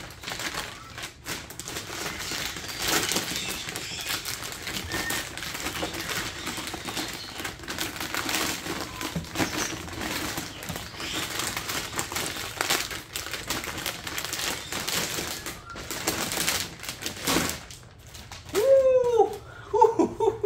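Rustling, crinkling and clicking of packaging being handled as a machine is unpacked from its foam and box. Near the end, a few loud chirps.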